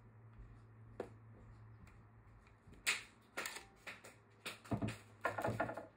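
Handling noise of a Hilti Nuron 22 V battery pack being taken off a cordless band saw: a single sharp click about a second in, then a run of irregular plastic clatter and rustling knocks from about three seconds, over a faint steady hum.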